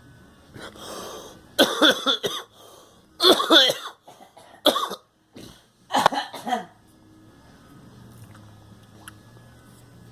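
A person coughing in four loud fits over about five seconds, the last ending about two-thirds of the way through.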